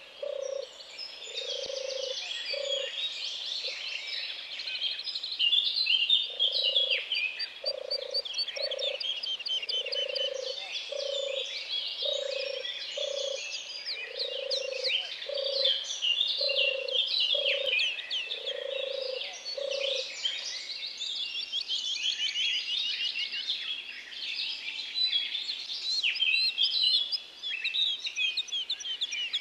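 Songbirds singing in a dense chorus of quick, high chirping notes, with a low note repeated about once a second that stops about two-thirds of the way through.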